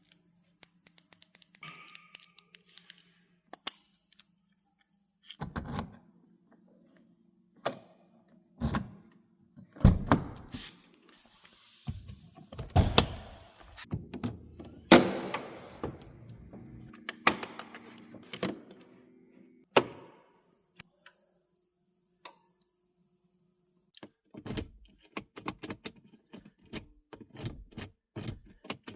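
Irregular clicks, knocks and thunks of hard objects being handled, with a quicker run of small clicks near the end and a faint steady hum in places.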